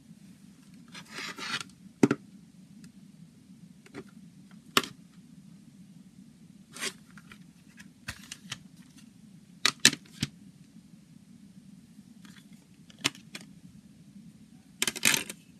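Plastic CD jewel case being handled and opened: a string of sharp plastic clicks and clacks with short rustles in between.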